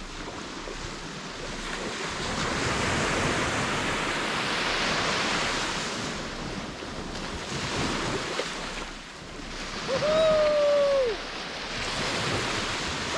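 Sea waves breaking and washing up the beach, swelling and fading in a steady hiss, with some wind on the microphone. About ten seconds in, a single drawn-out pitched call lasting just over a second rises, holds and falls away; it is the loudest sound.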